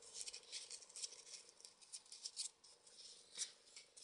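Faint rustling and clicking of folded paper 3D origami modules being pushed into one another by hand, with one sharper click about three and a half seconds in.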